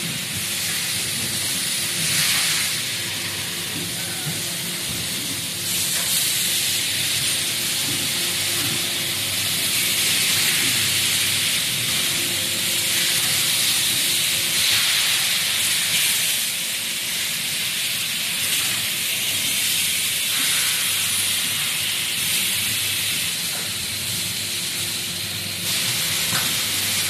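Pulp-moulding forming presses running in a factory hall: a loud, continuous hiss that swells and eases every few seconds, over a faint steady machine hum.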